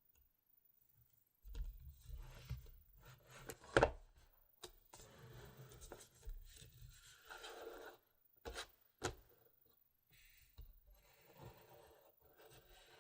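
GoPro Hero 4 Silver packaging being handled and opened close to the microphone: rubbing and scraping, with a sharp click about four seconds in and two more clicks around nine seconds, then softer rubbing.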